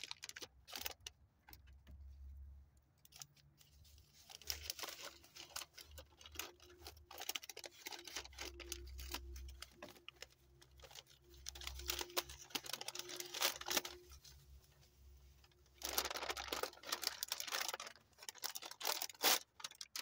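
Green paper wrapping being torn and crinkled open by hand: several bursts of rustling and tearing with small clicks between them.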